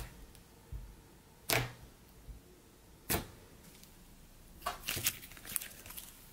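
Thick white puff butter slime being poked and stretched by hand, giving sharp little pops and clicks: three spaced about a second and a half apart, then a quick run of several near the end.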